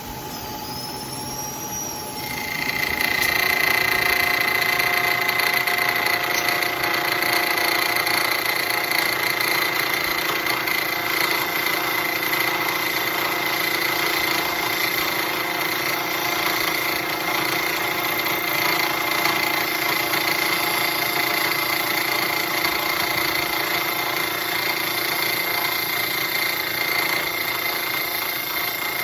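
Bridgeport milling machine's insert cutter cutting into the workpiece: the spindle runs lightly for about two seconds, then the cut engages and a loud, steady cutting noise with a high ring holds to the end. The cutter's inserts are nearly due for a change.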